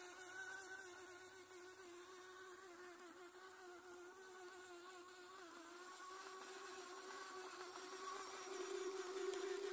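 Small electric toy-car motors whining as a remote-controlled robot helmet drives on its plastic wheels: a faint, steady buzzing hum that wavers slightly and grows louder over the last few seconds as it nears.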